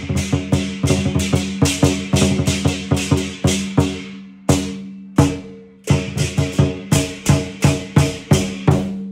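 Chinese lion dance percussion band: a drum with clashing cymbals and a gong struck in a quick, steady beat of about three to four strikes a second. It breaks off midway for a couple of lone strikes, picks up again, and stops near the end.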